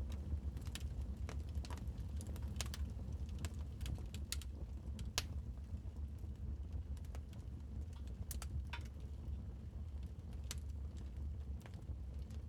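Wood fire crackling in a fireplace: irregular sharp snaps and pops over a low steady rumble, with one louder pop about five seconds in.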